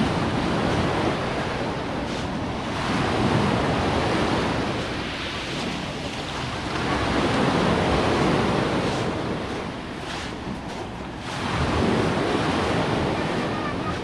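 Small sea waves breaking and washing up a pebbly shore, the surf swelling and fading about every four seconds.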